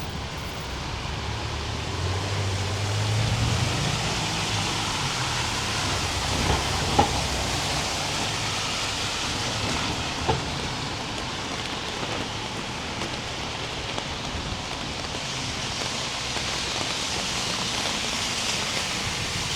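Steady hiss of falling rain, with a low engine rumble a few seconds in and a couple of sharp knocks near the middle.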